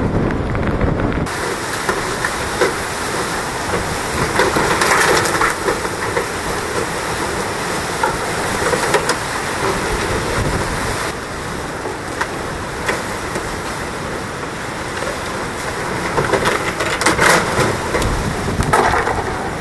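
Hurricane-force wind and driving rain, a steady rushing noise that swells in gusts about four seconds in and again near the end, with a few short knocks among it.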